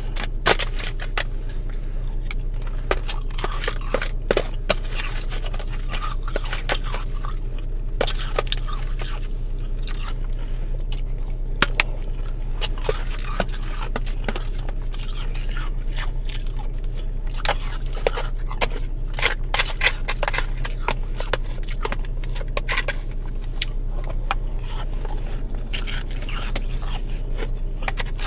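Powdery freezer frost being scraped up and crunched as it is eaten close to the microphone: irregular crisp crackles and scrapes, over a steady low hum.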